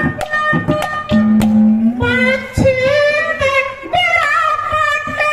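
Haryanvi ragni sung by a man into a microphone in a high, woman-like register, over an instrumental accompaniment with regular drum strokes and steady held tones. The voice comes in about two seconds in, with a wavering, ornamented pitch.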